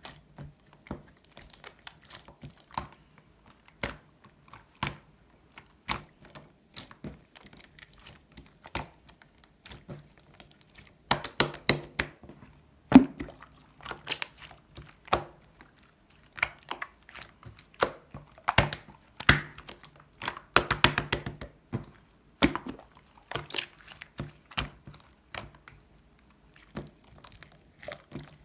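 Purple slime mixed with instant snow powder being kneaded and squeezed by hand, giving irregular sticky clicks, pops and crunches, with faster flurries of clicks about a third and two-thirds of the way through.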